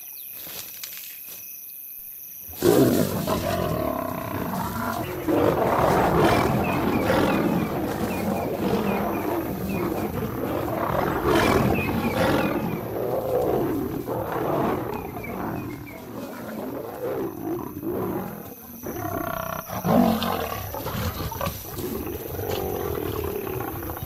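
Insects trilling, then about two and a half seconds in a sudden outburst of lions fighting: a male lion charging lionesses, with loud growls and snarls that keep on to the end.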